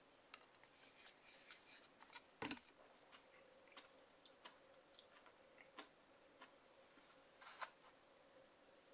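Faint sipping and slurping of miso soup from a wooden bowl, with scattered small mouth clicks and one dull knock about two and a half seconds in.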